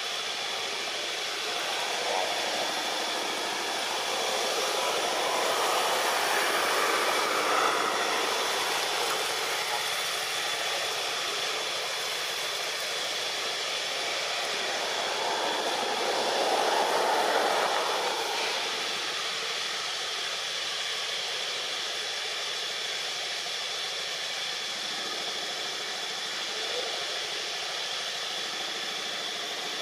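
Steady outdoor background hiss with a constant high-pitched whine, swelling twice into a louder rush: a few seconds in, and again just past halfway.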